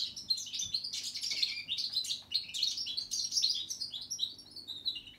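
Goldfinch mule, a goldfinch × canary hybrid, singing a long, fast, unbroken run of twittering chirps and trills, ending with a few falling notes just before the end.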